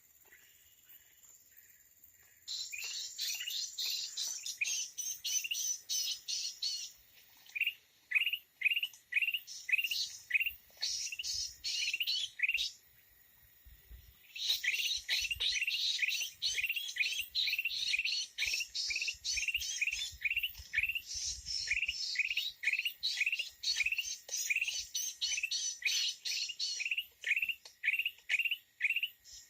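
Red-eyed bulbul calls: a steady run of short rising notes, about two a second, with bursts of dense higher chattering that start and stop abruptly.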